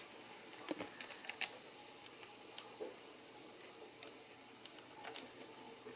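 Faint, scattered small clicks and taps of plastic N-scale model locomotives being handled and set onto the track, a cluster of them about a second in and a few more later.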